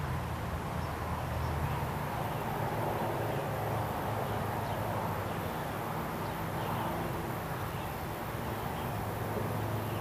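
Steady rural outdoor ambience: an even hiss with a low hum that fades in and out, and a few faint high chirps.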